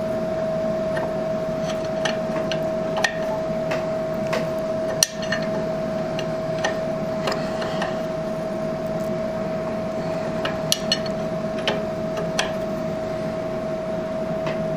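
Open-end wrench clicking and clinking against a drain plug on the underside of a motorcycle engine case: scattered sharp metal clicks, the loudest about five seconds in. A steady hum at one pitch runs underneath throughout.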